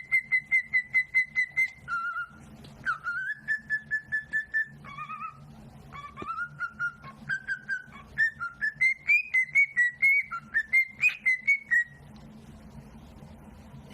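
A pet parrot whistling a tune: fast runs of short, clear whistled notes in several phrases that hold a pitch, then step up and down, stopping about two seconds before the end.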